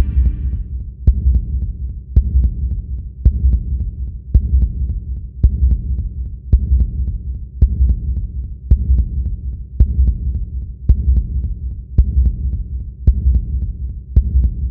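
Deep, slow heartbeat-like pulse in the soundtrack music, a low thump about once a second with a faint click on each beat.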